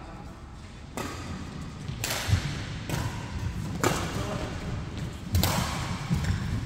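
Badminton rackets striking a shuttlecock in a doubles rally: about six sharp hits, roughly one a second, with players' footfalls thudding on the court floor between them.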